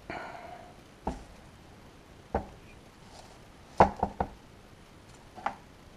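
Parts of a BMW active-steering (HSR) actuator being handled on a workbench: a short scrape, then sharp knocks and clacks, three of them in quick succession about four seconds in.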